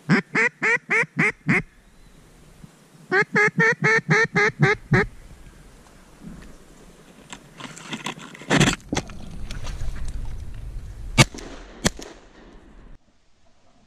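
Two rhythmic series of loud duck quacks, about six notes and then about nine, in the cadence of a hen mallard's greeting call. After that comes a stretch of rustling noise with two sharp clicks near the end.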